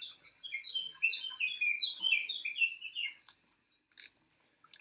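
A songbird singing a quick run of chirping notes that steps down in pitch and stops about three seconds in, followed by a few light clicks.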